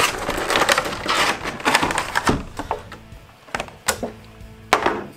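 Clear plastic blister packaging being pried open by hand: dense crinkling and crackling, then several separate sharp snaps and clicks as the tray flexes and lets go. Quiet background music runs underneath.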